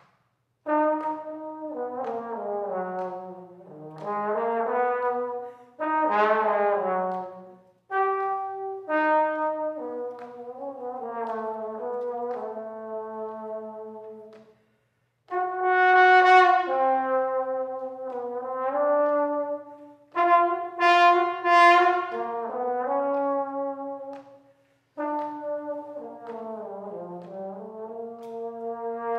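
Solo trombone playing unaccompanied: a line of short phrases with brief pauses between them, the notes often sliding smoothly from one pitch to the next.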